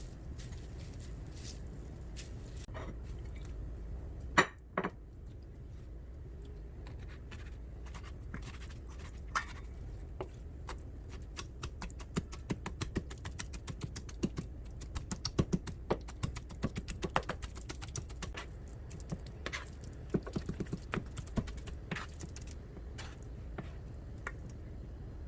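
Many small, irregular clicks and taps over a low steady background, with a sharp knock about four seconds in; the clicks come thick and fast through the middle of the stretch.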